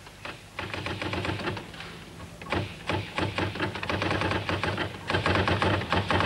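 Electric typewriter being typed on: rapid, uneven key clicks starting about half a second in, over a low steady hum.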